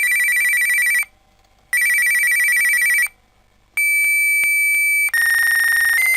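Fax machine call: two trilled electronic rings about a second long each, then a steady high answer tone crossed by clicks, then the warbling, screeching handshake tones as the fax connects.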